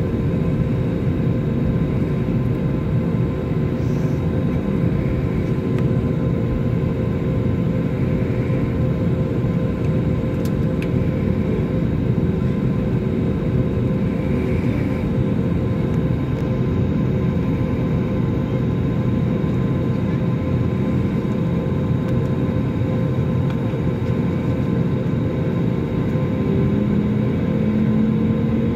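Cabin noise of a jet airliner taxiing: a steady rumble of the engines and airflow with a few steady tones over it. Near the end a low tone starts to rise.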